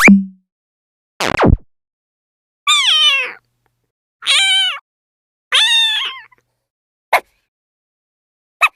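A cat meowing three times, each meow about half a second long and dropping in pitch at the end. A short hit opens it, a quick falling sweep follows about a second in, and two brief clicks come near the end.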